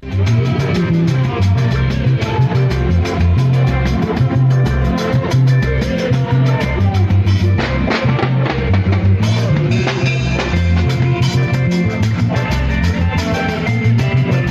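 A band playing highlife music: an electric bass guitar plays a prominent, moving bass line over a drum kit, with other instruments filling in above.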